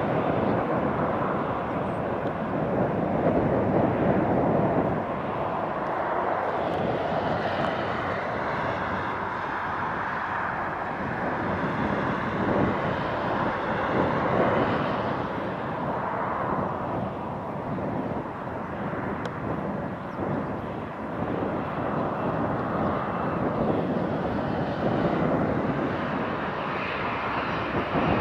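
Jet noise from an Airbus A320-200's CFM56 turbofan engines: a continuous rush that slowly swells and eases, with a faint high whine in places.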